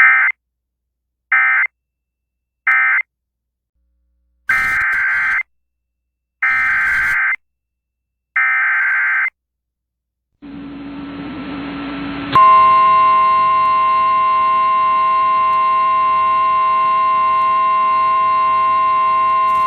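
Emergency Alert System data bursts over NOAA Weather Radio: three short end-of-message bursts, then three longer, buzzy SAME header bursts about two seconds apart. A couple of seconds of hiss follow, then the steady 1050 Hz weather-radio alarm tone starts about 12 seconds in, announcing a new severe thunderstorm warning.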